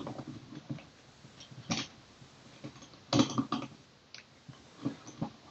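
Metal clicks and scraping from a disc detainer pick and tensioner working inside a Parkside disc detainer padlock as its discs are rotated. The clicks come irregularly in short bursts, loudest about three seconds in.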